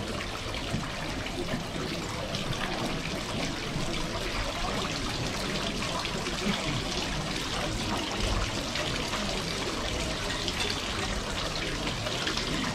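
Water from a tiered indoor decorative fountain spilling over its bowls and splashing steadily into the basin below.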